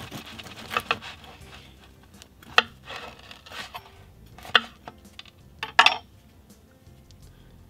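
Serrated bread knife sawing through the crisp crust of a sourdough loaf with crackling rasps, then a few sharp knocks on the wooden cutting board, the loudest about six seconds in.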